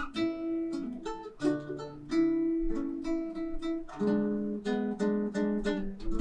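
Acoustic guitar playing the introduction of a song, a run of plucked and strummed chords.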